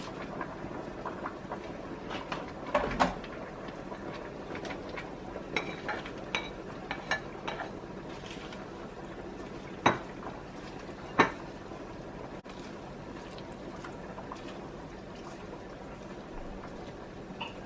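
Kitchen cookware and utensils clinking in a series of light knocks over a steady background hiss, with two sharper clinks about ten and eleven seconds in.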